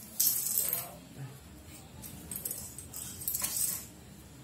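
Hands handling an Ethernet cable and small plastic RJ45 plugs: three short bursts of rustling and scraping.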